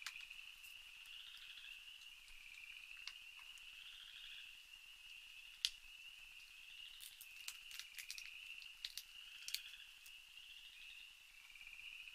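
A faint chorus of night insects trilling steadily, swelling and fading every couple of seconds. Scattered sharp clicks and taps run through it, one loud one about halfway through and a run of them later on.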